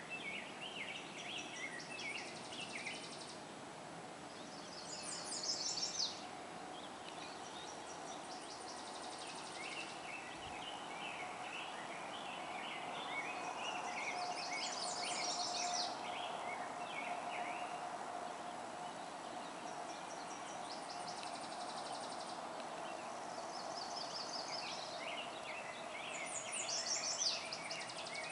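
Wild birds singing: a busy mix of chirps, with a rapid high trill that comes back several times and is loudest about five seconds in and near the end. A steady hum of distant traffic runs underneath.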